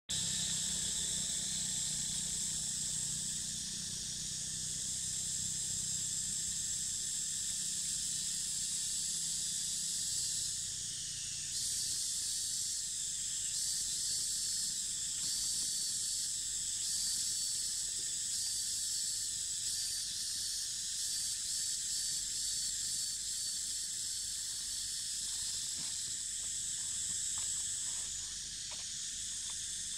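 Insects buzzing at a steady high pitch, with a pulsing chirp joining in from about eleven seconds in until near the end. A low rumble sits underneath for the first ten seconds or so.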